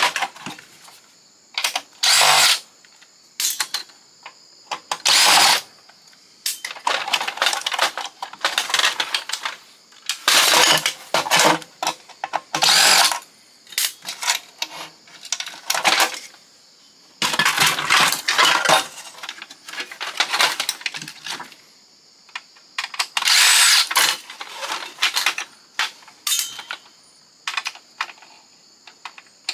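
A power drill run in repeated short bursts to back out screws while a fax machine is dismantled, with light clicks and clatter of loosened parts between the bursts.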